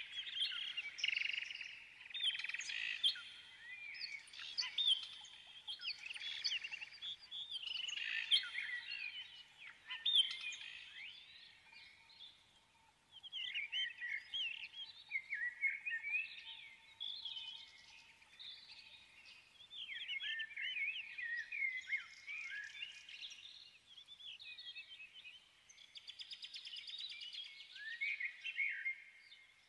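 Songbirds chirping and singing: many quick, overlapping rising and falling whistled notes in bursts with short pauses between.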